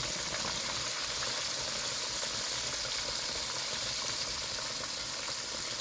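Hot oil sizzling steadily around breaded catfish pieces deep-frying in a skillet.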